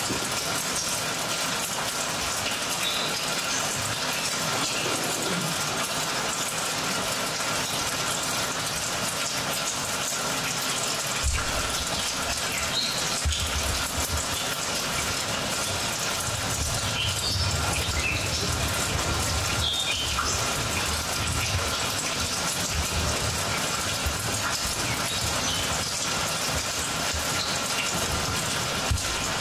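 Steady rushing noise like gushing water, the sound score of a stage dance piece, with low thuds and rumbles coming in about a third of the way through.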